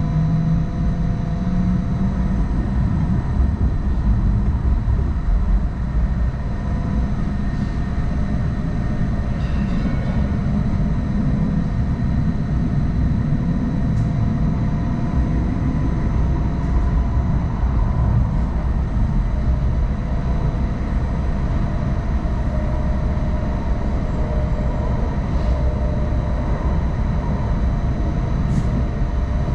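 Hong Kong Light Rail Phase I light rail train running along the track: a steady low rumble with a few faint constant tones above it and an occasional light click.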